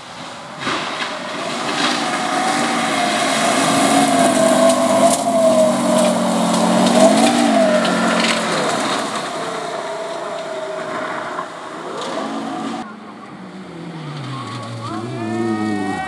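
A rally car driving hard on a loose gravel stage: a steady drive note over the crunch and spray of gravel, briefly rising and falling in pitch midway. It cuts off suddenly, and near the end a second rally car's engine note drops and then climbs.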